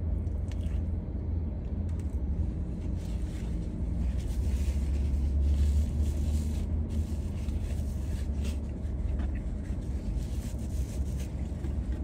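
Steady low rumble inside a parked car's cabin, with faint chewing and napkin-rustling sounds from a person eating a burger, thickest in the middle few seconds.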